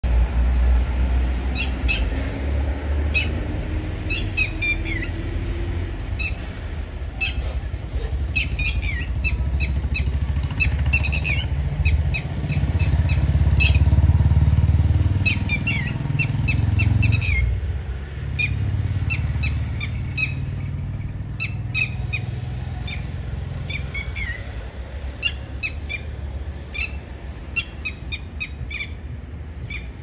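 Red-wattled lapwing giving repeated sharp, high calls in quick bursts of several notes, over the steady low rumble of road traffic that swells loudest around the middle as a vehicle passes.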